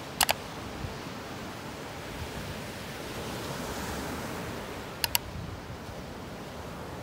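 Small ocean waves breaking and washing up a sandy beach, a steady surf hiss that swells a little around the middle. Two sharp double clicks stand out above it, one near the start and one about five seconds in.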